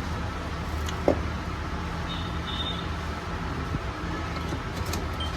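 Steady low hum of road traffic, with one sharp clink about a second in and a few light ticks near the end as engine parts are handled.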